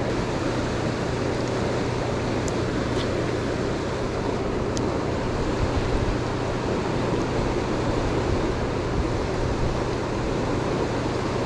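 Turbulent water rushing out of a dam's powerhouse discharge, a steady noise with a constant low hum underneath.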